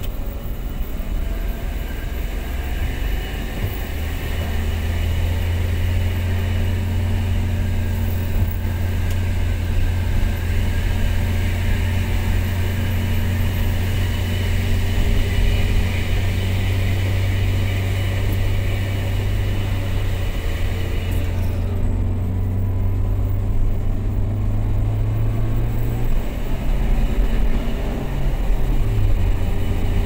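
Steady engine and road noise of a moving car, heard from inside its cabin, with a continuous low hum. The engine note wavers briefly near the end.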